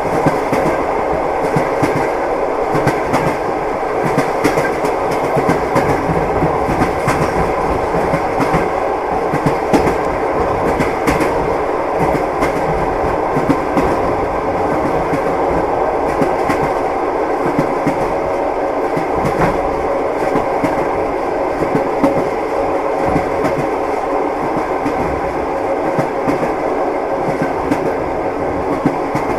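Train wheels rolling on the rails with a clickety-clack over the rail joints: a steady, even rumble with frequent short knocks.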